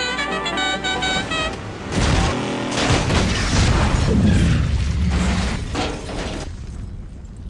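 Music with held notes for the first second and a half, then, about two seconds in, a loud film explosion with a second blast close behind. The boom fades away about a second before the end.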